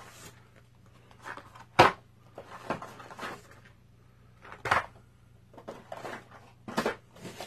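Small boxes of cartridges being pulled out of a cardboard shipping carton and set down on a table: cardboard rustling and scraping, with several sharp knocks, the loudest about two seconds in.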